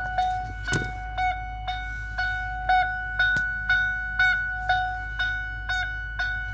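Electronic warning chime of a 2001 Lincoln Navigator dinging steadily about twice a second, as a vehicle chimes with a door open or the key left in.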